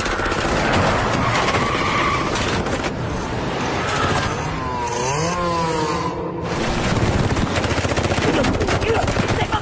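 Action-film sound mix of vehicles driving hard over dirt, with engines running and tyres skidding, and a rapid clatter of gunfire. A wavering pitched sound glides up and down near the middle, and the mix breaks briefly just after it.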